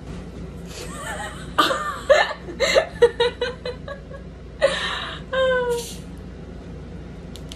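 Women laughing: a quick run of rapid laughs near the middle, a short hissing burst, then a falling, pitched laugh.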